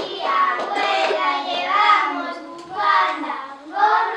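Children singing, their voices holding long notes that rise and fall.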